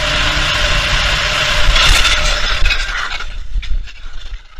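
Car at speed with a loud rushing roar of road and wind noise. It swells about two seconds in with sharp impacts, then dies down into scattered knocks and clatter as the car crashes.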